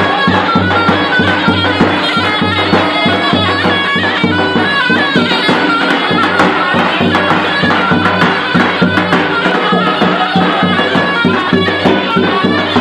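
Live horon dance music: a davul bass drum beating a fast, steady rhythm under a reedy wind instrument playing a busy folk melody over a low sustained tone.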